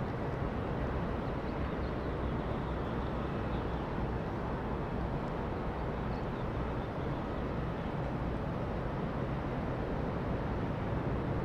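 Steady low rumble and hiss of distant jet engines at an airport.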